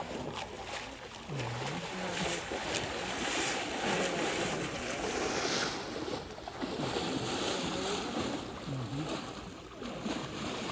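Water splashing and churning as a brown bear wades and paddles through a shallow pond.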